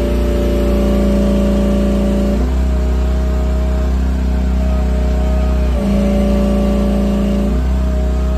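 Small mini-excavator engine running steadily under hydraulic load, with a high whine over the engine note; the pitch and load shift every couple of seconds as the controls are worked.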